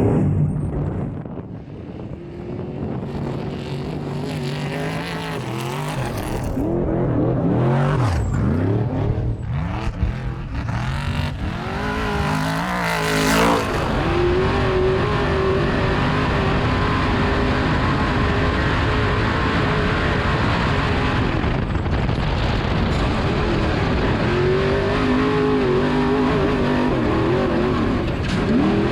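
Off-road trophy truck's engine racing hard at high revs. The pitch dips and climbs several times in the first half and again near the end, and holds steady at full revs in between.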